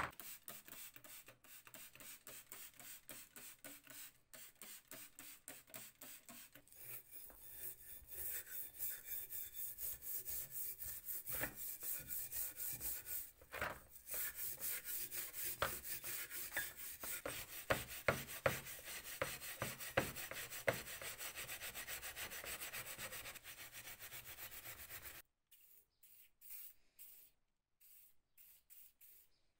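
Steel tool parts being scrubbed with an abrasive pad in a plastic tray: rhythmic back-and-forth rubbing at about three strokes a second, getting louder after about seven seconds. Near the end, the scrubbing stops and a few short hisses of aerosol spray follow.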